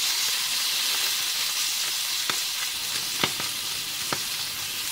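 Salmon fillet frying skin-side down in smoking-hot olive oil: a steady sizzling hiss with about three sharp spits of oil. This is the sizzle of a pan hot enough to crisp the skin.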